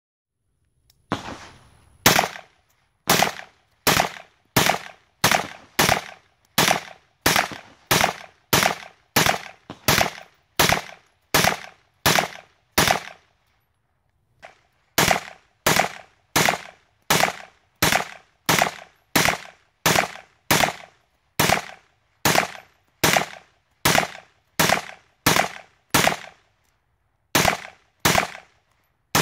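Semi-automatic 9mm AR-pattern carbine firing shot after shot at a steady pace of about one and a half shots a second, each shot ringing out briefly. The shooting stops for about two seconds midway, then resumes at the same pace.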